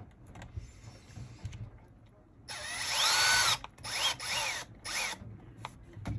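Small electric screwdriver with a 1.5 mm hex bit running in one burst of about a second, its whine rising and then falling, followed by three shorter bursts, backing the screw pin out of an RC truck's suspension arm.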